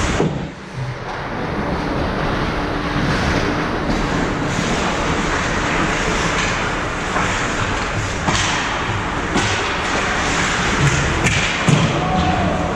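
Ice hockey play on the rink: a steady rush of skating and arena noise, with several sharp knocks in the second half.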